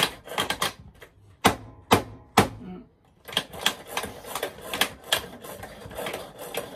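Kitchen knife chopping on a cutting board, mincing: a few separate knocks, then a quick, uneven run of knocks at about four or five a second.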